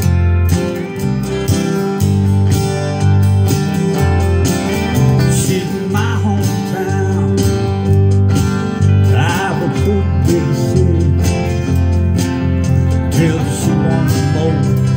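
Acoustic guitar strummed in a steady country rhythm, with a voice coming in for short phrases a few times.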